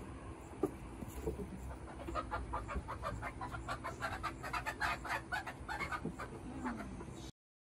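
Chickens clucking in quick short calls, growing busier about two seconds in, then cutting off suddenly near the end.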